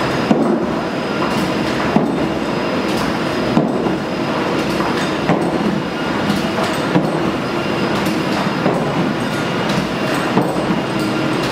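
Large skiing treadmill belt running steadily under roller-ski wheels, with a sharp click about every one and a half seconds in time with the skater's strides.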